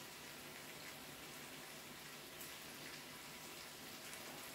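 Food sizzling faintly on a Korean barbecue grill: a steady, crackling hiss.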